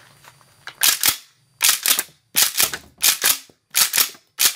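Mossberg 590 Shockwave 12-gauge pump-action shotgun being racked hard and fast: about six loud, sharp metallic clacks of the slide about 0.7 s apart, starting about a second in. Shells are fed from the magazine tube and ejected, testing whether the replacement cartridge stop and interrupter keep the rounds from spilling out.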